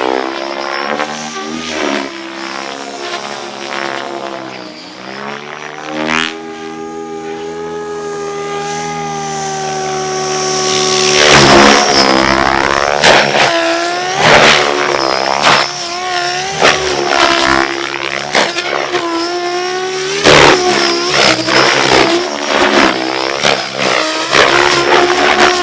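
Radio-controlled helicopter flying: its motor and rotor drone sweeps down and up in pitch again and again as it passes and manoeuvres. Repeated short bursts of noise come over it in the second half.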